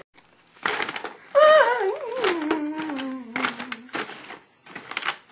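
Rustling and handling noises from bag puppets, with a person's voice making one long sliding-down vocal sound from about a second and a half in.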